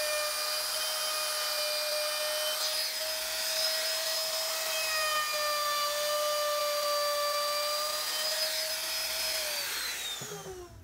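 Hand-held electric router running at high speed, its bit cutting a carved pattern into a wooden board: a steady high whine with a hiss of cutting. Near the end the whine falls in pitch and fades.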